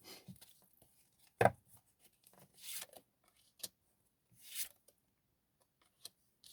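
Tarot cards being handled on a table: a sharp tap about a second and a half in, then two soft sliding swishes with a light click between them.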